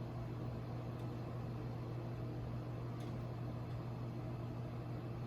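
Steady low hum with a few overtones, with two faint clicks about a second and three seconds in.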